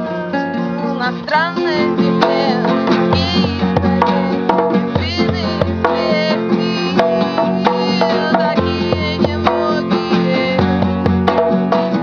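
Acoustic guitar strumming with singing, a drum beating along.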